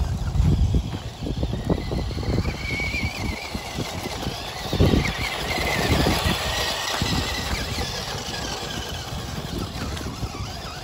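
Battery-powered RC monster truck driving over coarse gravel. Its electric motor and gears whine, rising and falling with the throttle, over the crunch and rattle of the tyres on the stones.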